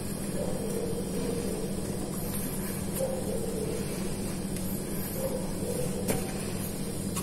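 A steady low machine hum with a hiss behind it, and one short click about six seconds in.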